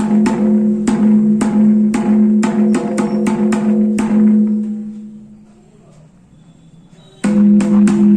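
Santhali mridanga hand drum played in fast, even strokes, about four to five a second, with a pitched ringing tone under the hits, as a sound check of its tone. The playing stops about four seconds in and the ring dies away, then the strokes start again abruptly near the end.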